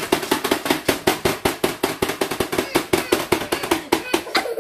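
Plastic buttons of a Pie Face Showdown game being slammed rapidly by two players, a fast even clacking of about nine to ten hits a second that stops suddenly at the end.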